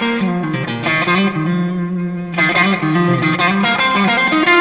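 Fender Stratocaster Deluxe Roadhouse electric guitar played on its neck pickup, direct through a Valeton GP-100 multi-effects unit: a picked melodic phrase of single notes and sustained tones.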